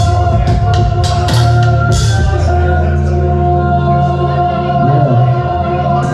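Electronic beat playing through a sound system: sustained organ-like chords over a deep bass, with drum hits that drop out a little over two seconds in.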